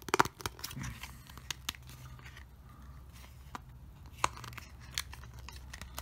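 Plastic figurine being handled and fitted together, with small plastic parts clicking: a quick cluster of sharp clicks at the start, then scattered single clicks over a faint low hum.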